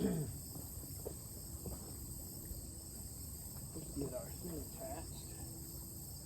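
Steady, high-pitched chorus of insects in a summer pasture, with a low rumble of wind or handling underneath.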